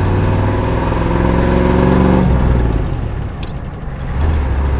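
Ford 6.9-litre diesel V8 pulling under load in second gear, heard from inside the cab, its note rising slowly for about two seconds, then dropping away suddenly. It comes back as a steady lower note near the end.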